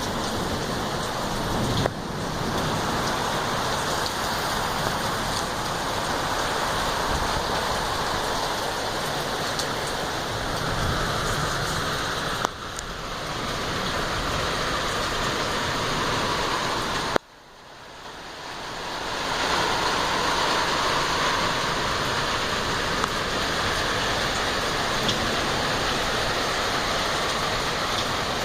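Steady heavy rain falling, an even hiss. It dips briefly twice, then cuts out about two-thirds of the way through and swells back over a couple of seconds.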